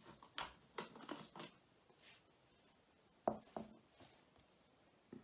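Light plastic clicks and taps from a small model-locomotive bogie being handled and its wheelsets fitted: a quick cluster in the first second and a half, two more about three and a half seconds in, and one at the very end.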